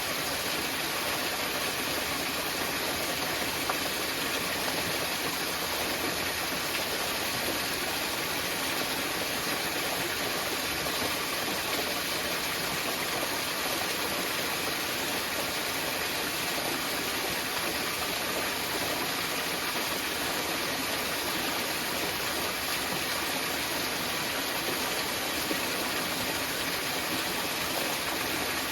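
Small mountain waterfall: water falling and splashing in a steady rush.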